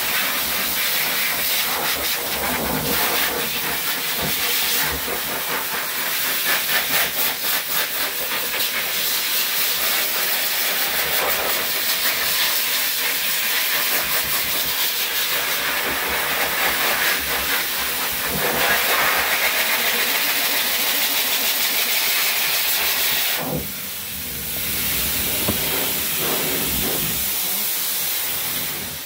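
Hose-type dog grooming force dryer blowing a steady rush of air through its nozzle onto a wet puppy's coat. It dips briefly about three-quarters of the way through and shuts off near the end.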